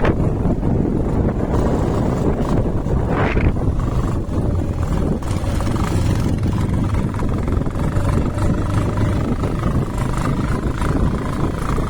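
Wind rushing over the microphone on a moving motorcycle, with engine and road noise beneath. It is loud and steady throughout.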